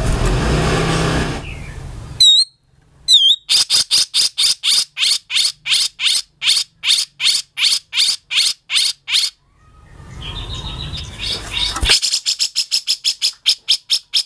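Grey-cheeked bulbul (cucak jenggot) singing in rough, harsh style: long trains of sharp repeated notes at about three to four a second, with two swooping whistles near the start. A noisy rasping stretch opens it and another comes about two-thirds through, after which the notes come faster.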